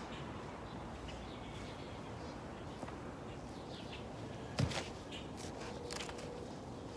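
Dry leaves and soil rustling and crackling as hands pull dead plant matter out of a planter tub, over steady outdoor hiss with small birds chirping now and then. A single thump about four and a half seconds in.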